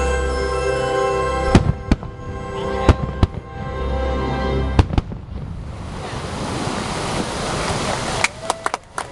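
Aerial fireworks bursting over the show's music, which holds long chords. Five sharp booms come in the first five seconds. The music then gives way to a steady hiss, and a quick run of cracking pops starts near the end.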